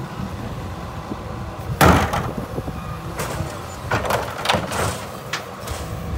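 Rear-loader garbage truck idling with a steady low rumble while a wheeled plastic garbage cart is tipped over the hopper and dumped. A loud bang about two seconds in, and more rattling bangs around four to five seconds as the cart is shaken out.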